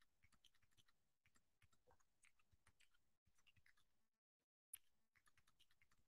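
Faint typing on a computer keyboard: quick runs of key clicks, with a short pause about four seconds in followed by one sharper click.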